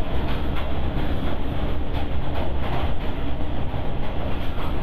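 Passenger train running across a steel girder railway bridge, heard from inside the carriage: a steady, loud rumble of wheels on rails.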